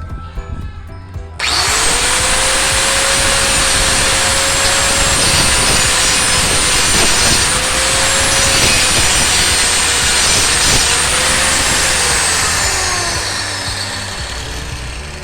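Electric power saw cutting wood. It starts about a second and a half in with a quick rising whine, runs at a steady pitch with a few brief dips under the load of the cut, then winds down with a falling whine near the end.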